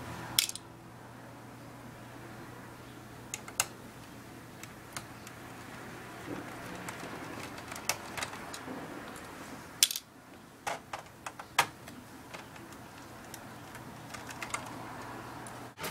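Scattered clicks and light taps of small plastic and metal laptop parts being handled during disassembly, a cluster of them past the middle, over a steady low hum.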